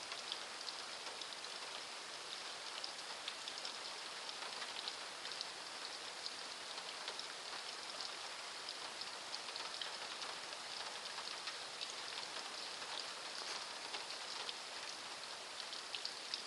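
Heavy thunderstorm downpour: rain falling steadily as an even hiss, dotted throughout with sharp ticks of single drops striking close by.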